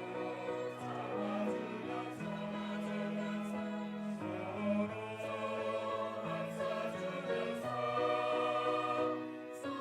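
Church choir singing a hymn in several parts, holding long chords that change every second or two.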